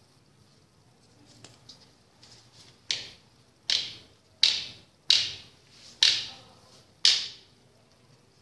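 A few faint clicks, then six sharp, loud hits, each dying away quickly, spaced roughly three-quarters of a second to a second apart.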